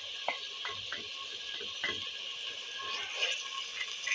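A spoon tapping and scraping against a plate as ginger-garlic paste is knocked off into a clay pot, then a spatula starts stirring beef pieces in the pot, over a steady sizzle of oil. The clicks come irregularly, most of them in the first two seconds.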